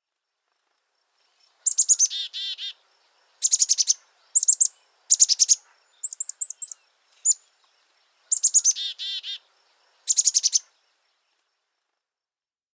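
A songbird singing: about eight short phrases of quick, high trilled notes, some followed by lower repeated notes, with short pauses between phrases.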